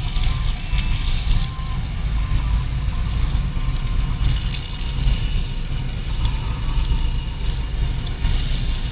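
Car engine and tyre rumble heard from inside the cabin, low and steady, with a hiss higher up that rises and falls.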